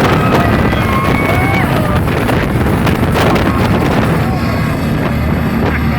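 Speedboat under way, its engine running steadily under heavy wind buffeting on the microphone.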